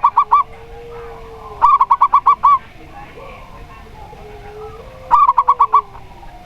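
Zebra dove (perkutut) cooing: three phrases of quick staccato notes, each about a second long, with a fainter drawn-out lower note underneath.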